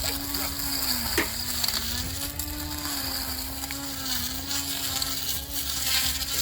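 Electric grass cutter's motor running with a steady hum that wavers slightly in pitch, dipping briefly with a knock about a second in.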